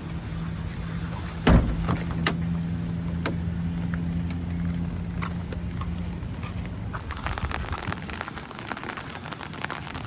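A heavy door thud about a second and a half in, like a van door shutting, over a steady low hum with a few lighter clicks; after about seven seconds the hum stops and rain patters.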